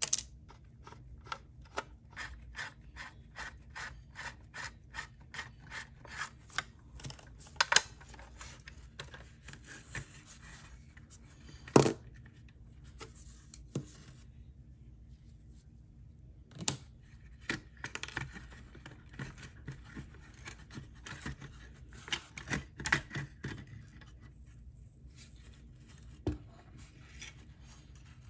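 Small metal hand tools scraping and clicking against a die-cast model truck and its plastic chassis as it is taken apart. For the first ten seconds there is a run of short, even scrapes, about two a second. After that come scattered sharper clicks, the loudest about twelve seconds in.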